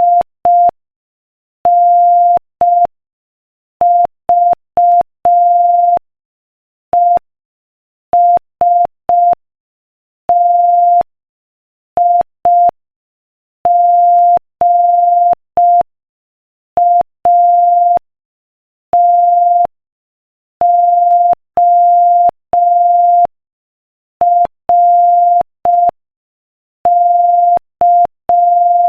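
Morse code sent at 5 words per minute: one steady beeping tone keyed into short dots and long dashes, with longer silent gaps between letters and words.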